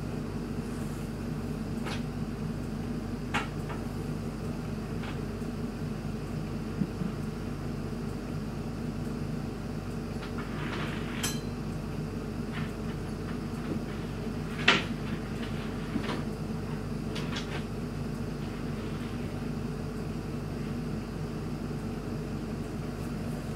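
Steady low hum of room ambience, with a few scattered small knocks and clicks; the sharpest knock comes about fifteen seconds in.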